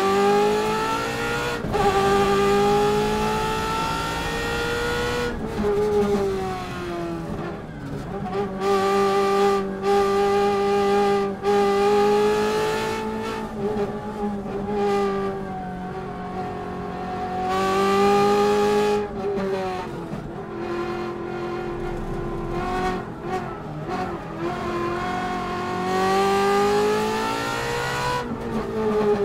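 Ferrari V8 engine of a Subaru Impreza rally car at full race effort, heard from a camera mounted on the car. The engine note climbs and falls with the throttle and drops sharply several times, with clusters of short cracks in the middle stretches.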